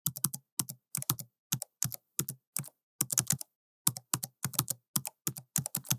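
Computer keyboard typing sound effect: rapid key clicks in short runs of two to four, with brief pauses between runs.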